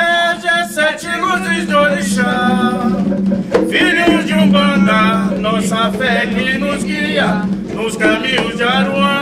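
A man singing an Umbanda ponto to Oxalá in Portuguese, holding and bending his notes, accompanied by hand drums.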